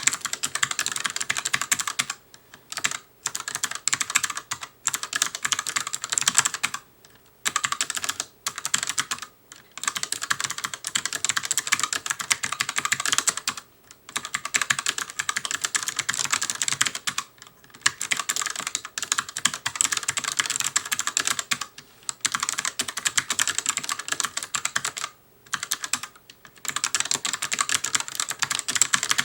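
Fast continuous typing on an ELECOM ARMA TK-ARMA50BK low-profile mechanical keyboard with ELECOM's own clicky switches: rapid crisp key clicks in runs, broken by brief pauses every few seconds.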